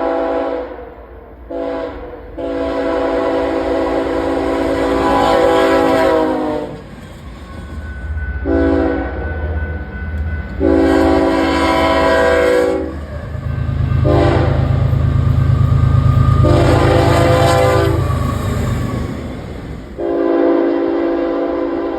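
A locomotive's multi-chime air horn sounding for a grade crossing: a loud, several-note chord in a run of long and short blasts. A heavy low rumble swells through the middle as the train passes.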